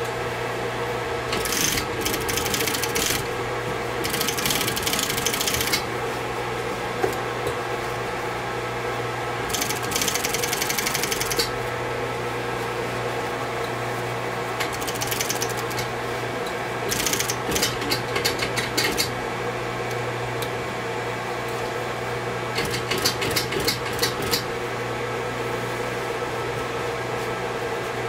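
Japanese industrial sewing machine stitching heavy denim in repeated short runs of rapid, even stitching, each a second or two long, with a steady hum between runs.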